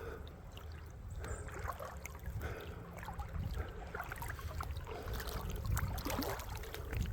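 Creek water trickling and running over rocks, with scattered clicks of footsteps on stones.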